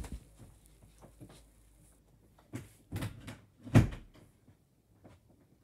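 A few sharp plastic knocks and clacks from a Blu-ray disc case being handled. There are about four of them, clustered in the middle, and the last is the loudest.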